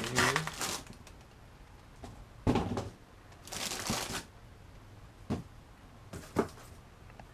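Packaging being handled while parts are unboxed: rustling of cardboard and packing material with a few separate knocks and thumps, a longer rustle about halfway through.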